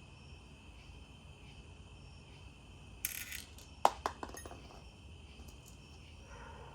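Small metal hardware clinking: a brief rustle, then a sharp clink about four seconds in with a few quick lighter clinks after it, over steady cricket chirping.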